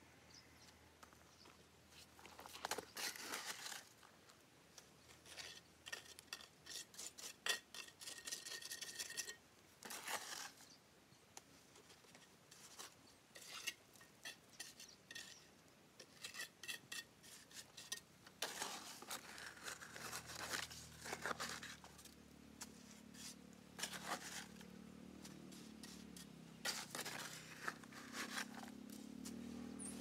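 Irregular bursts of scraping and clinking from hand work on hard material. From about twenty seconds in, a low hum with a few steady tones joins in.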